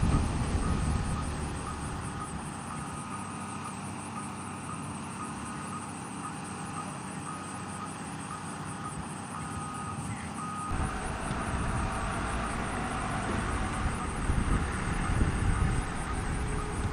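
Steady outdoor background noise with a faint, high electronic beep repeating about every two-thirds of a second, like a reversing alarm. About two-thirds of the way through, a louder low rumble comes in.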